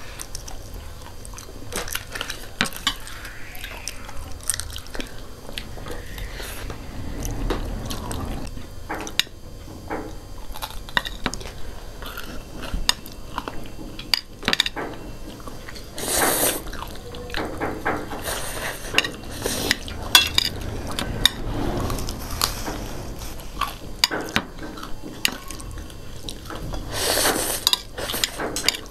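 Two people eating spicy instant noodles and fried chicken feet: chopsticks clicking and scraping on plates, with biting and chewing throughout. Two long noodle slurps, about 16 seconds in and near the end, are the loudest sounds.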